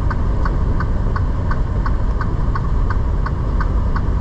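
Steady low rumble of a semi-truck's engine and road noise heard inside the cab, with an even, sharp ticking about three times a second.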